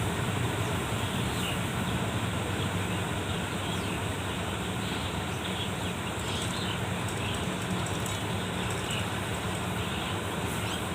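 Diesel engine of farm harvesting machinery running steadily under load, with an even hum. Faint short high chirps come through in the middle.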